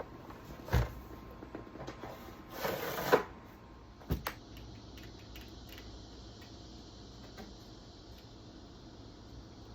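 Chainsaw parts and tools handled at a workbench: a knock about a second in, a short scraping rustle around three seconds, and a sharp click about four seconds in, then only a low steady background.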